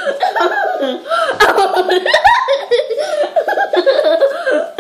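A three-year-old girl laughing in repeated fits of giggles, her hand held over her mouth.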